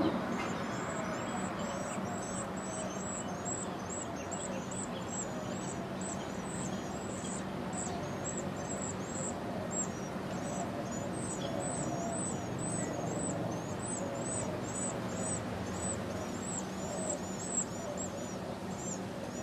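A bird calling with high, thin chirps, repeated about two to three times a second, over a steady background hiss and rumble.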